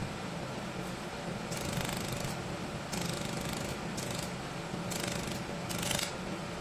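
Handheld laser welder firing on an aluminium mold part in about five short bursts of hiss, each under a second, over a steady machine hum.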